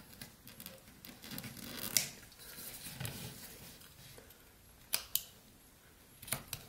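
Pocket knife blade cutting and shaving pine in short, quiet scraping strokes, with a few sharp clicks about two, five and six seconds in.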